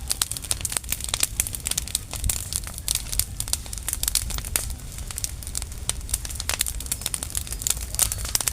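Dry leaves burning, crackling with a dense run of irregular sharp pops and snaps over a low steady rumble.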